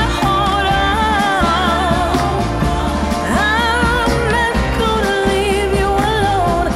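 Background music: a song with a singing voice over a continuous bass line.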